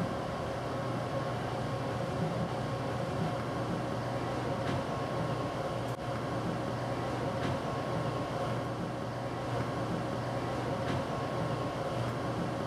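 Steady background hum and hiss with a few faint clicks; no piano note sounds.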